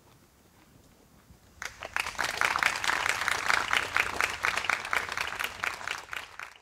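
Audience applauding, breaking out about two seconds in and cutting off suddenly at the end.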